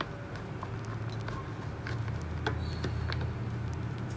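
Rolls of washi tape being handled and set down on a desk: scattered light taps and clicks, a few a second apart, over a steady low hum.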